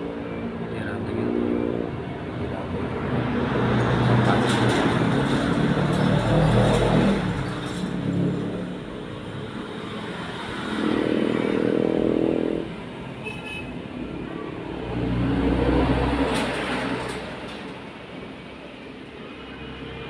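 Motor vehicles passing on a road, engine sound swelling and fading about three times over a steady traffic hum.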